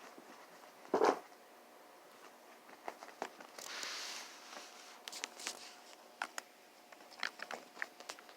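Chihuahua puppies playing and scuffling: faint scattered light clicks, taps and rustling, with a short louder thump about a second in and a brief rustle around four seconds.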